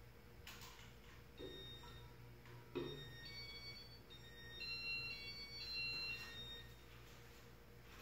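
Casablanca Metropolitain ceiling fan going through its demo mode: a run of electronic beeps at several different pitches, starting about one and a half seconds in and ending near seven seconds, with two clicks early in the run, over a faint steady low hum as the blades begin to turn.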